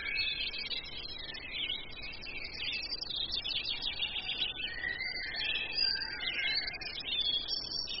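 A chorus of many forest songbirds singing at once: dense overlapping chirps and trills with longer whistled notes gliding in pitch, never pausing.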